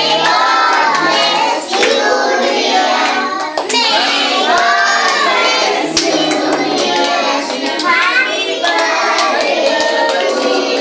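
Group of children singing a birthday song together around the cake, with hands clapping along.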